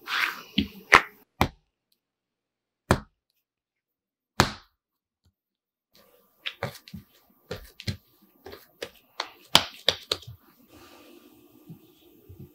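Bread dough being slapped and kneaded by hand on a countertop: a quick run of sharp slaps, two lone smacks a second and a half apart, then a busier patter of lighter taps and squishing as the dough is rounded into a smooth ball.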